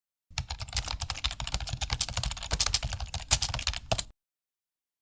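Dense, irregular crackling and popping of food frying in a pan, typical of partridge pieces roasting in hot oil. It starts just after the beginning and cuts off abruptly near the end.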